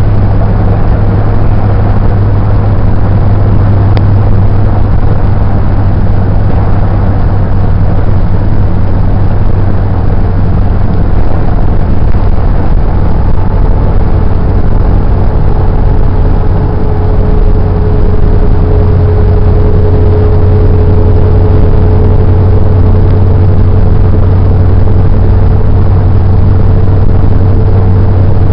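Car driving at steady speed, heard from inside: a loud, even drone of engine and road noise with a faint steady whine over it.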